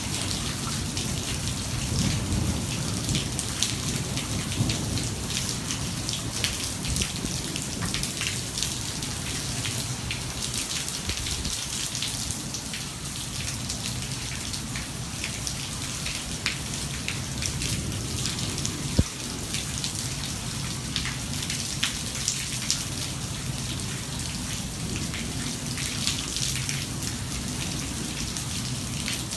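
Heavy thunderstorm rain pouring steadily, with dense close drops tapping on surfaces. A low rumble of thunder trails off in the first few seconds.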